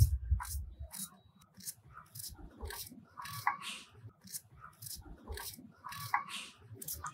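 Small kitchen knife slicing a red onion by hand into thin slices: a run of short, crisp cuts, about two or three a second. A low rumble of wind on the microphone in the first second.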